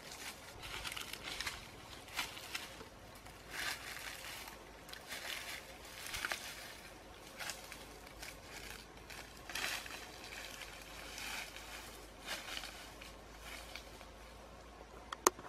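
Footsteps crunching and rustling through dry leaves and brush, a step about every second, with a sharp snap near the end.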